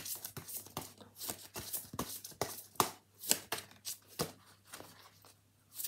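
A deck of oracle cards being shuffled by hand: a quick, irregular run of light slaps and taps of card on card, pausing briefly near the end before one more tap.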